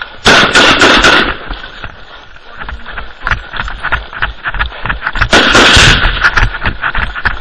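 Close automatic gunfire: a burst of rapid shots about a quarter second in, lasting about a second, and a second burst about five seconds in. Between the bursts there is clatter and knocking from someone running with gear.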